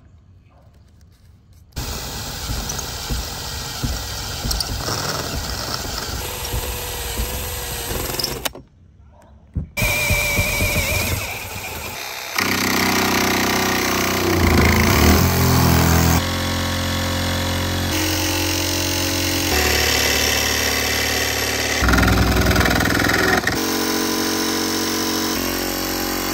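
DeWalt DCS334 20V XR cordless jigsaw cutting a fan opening through a van's sheet-metal roof. It runs loud, stops briefly about eight seconds in, and its pitch changes in steps as the cut goes on.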